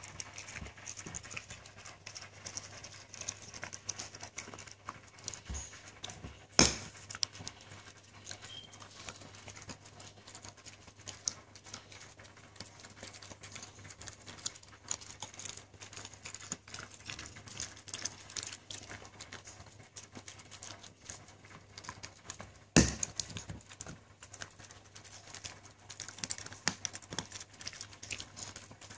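Siberian husky gnawing and crunching a hard stick-shaped chew treat, a run of small clicks and crackles from teeth on the treat, with two sharp knocks far apart.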